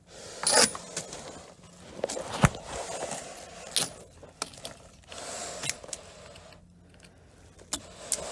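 A hand tool scraping and prodding at the old painted timber planking and keel of a wooden boat hull. The sound is irregular scratches and sharp clicks, the loudest a scrape about half a second in and a knock about two and a half seconds in.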